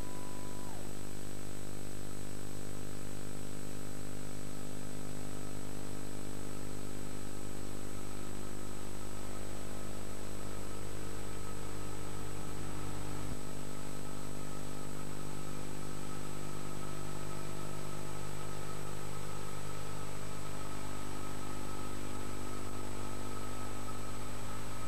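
Steady electrical hum and buzz with many overtones, a thin high whine and an even hiss: the background noise of the recording itself once the film's music has stopped.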